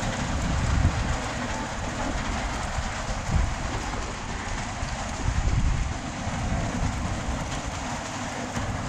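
Steady rain falling, an even hiss, over a low rumble that swells a few times, loudest about a second in, around three and a half seconds in and again near five and a half seconds.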